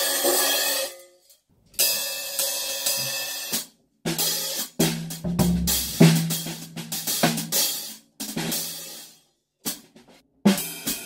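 A cymbal fitted with rivets is struck and left to ring, twice. Then a drum kit is played, cymbal strokes mixed with drum hits.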